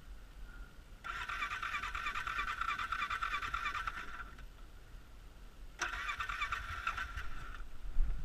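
Electric starter cranking the 2013 Polaris Sportsman 500's engine after it was swamped in lake water, in two attempts: about three seconds, a pause, then under two seconds. The engine does not catch.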